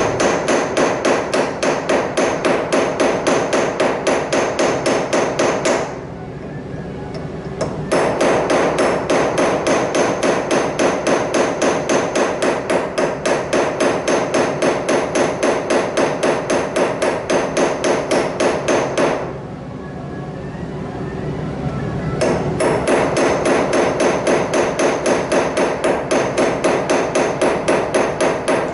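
Small hammer tapping a pocket knife laid on a small steel anvil, quick even strokes with a metallic ring, peening over the handle pins. The tapping stops twice, about six seconds in and again near twenty seconds in, then resumes.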